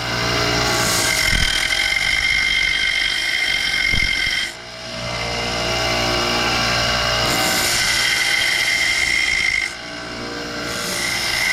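A drill press running and boring into metal, a steady whine with a hiss. It goes in three long runs with short dips between them, one for each of three holes.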